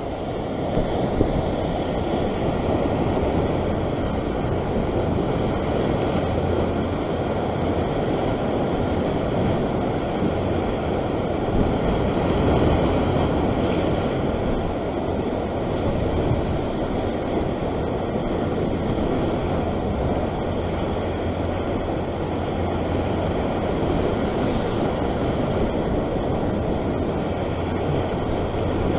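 Rough ocean surf washing and breaking against a rocky shore: a steady, unbroken rush of water, with wind buffeting the microphone as a low rumble underneath.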